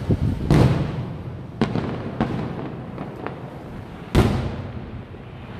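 Aerial fireworks shells bursting in a display: a string of booms, the loudest about half a second in and about four seconds in, with smaller bangs between, each trailing off.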